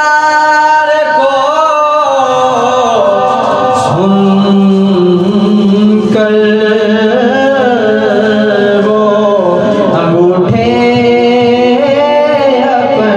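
Man singing an Urdu manqabat, a devotional poem, into a handheld microphone, drawing out long ornamented notes. He breaks off briefly about ten seconds in, then carries on.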